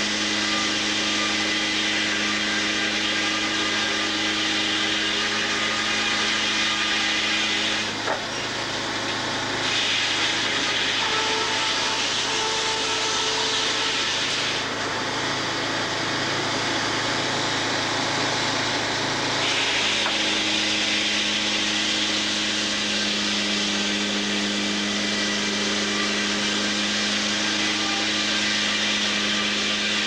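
Sawmill head saw running with a steady hum. From about 8 seconds in, it cuts through an oak log for about eleven seconds and its tone changes under the load, then it runs free again.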